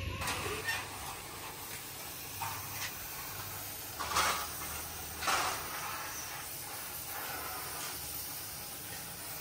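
Steady background hiss with a few scattered knocks and scuffs of things being handled, the loudest about four and five and a half seconds in.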